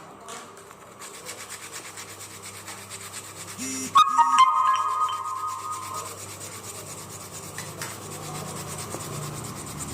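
Steady rubbing of abrasive polishing on a freshly glued fishing-rod joint. About four seconds in, a loud high steady tone sounds for about two seconds.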